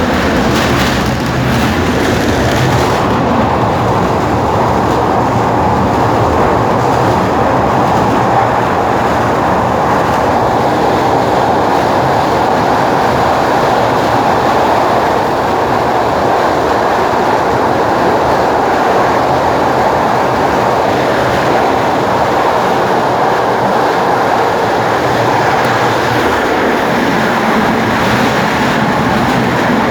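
High-speed tram car running along the rails, heard from on board: a steady, loud rumble of wheels and running gear with a low hum beneath it.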